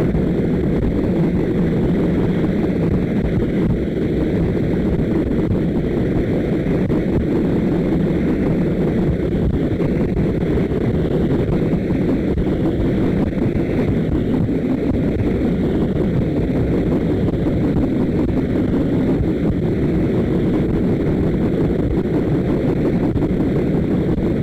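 Steady rush of wind and train running noise, heard from an open carriage window of a fast-moving steam-hauled train.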